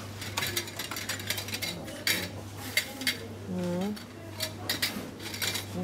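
Irregular clatter and light clinks of small hard goods being handled on a shop shelf, over a steady low hum.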